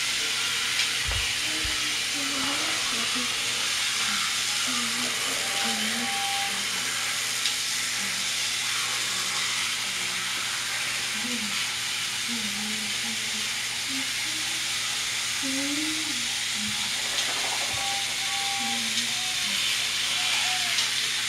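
Steady hiss with a low hum underneath, faint distant voices now and then, and a few light clicks.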